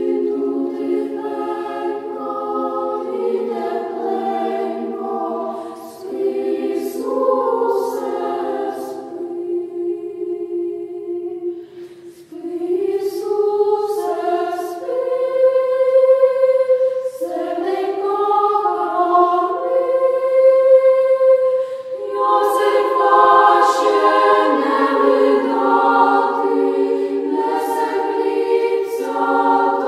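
Children's church choir singing slow, held phrases in several-part harmony, with short breaks between phrases about six and twelve seconds in.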